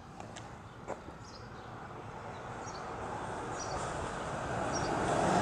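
Birds chirping in short high calls about once a second, while the noise of a passing vehicle grows steadily louder through the second half.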